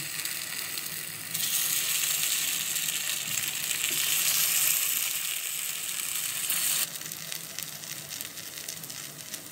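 Oil sizzling steadily in a paniyaram pan as egg paniyaram batter fries in its cups. The hiss gets louder about a second in and drops back near the seven-second mark.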